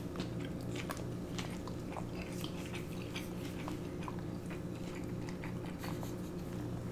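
Close-up chewing of sushi: many small scattered mouth clicks and smacks as people eat salmon nigiri and shredded carrot, over a steady low hum.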